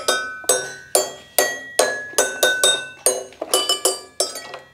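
Toy xylophone being played: a run of about a dozen struck notes, roughly three a second, each a bright, glassy ping that rings briefly and fades.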